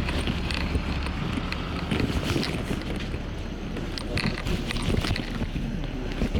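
LiAZ bus engine running: a steady low rumble, with scattered short clicks and rattles over it.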